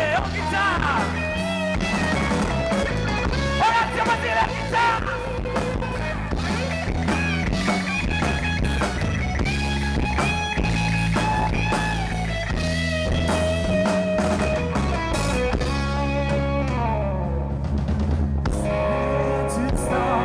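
Live rock band playing: an electric guitar plays lead lines with bending, sliding notes over bass and drums.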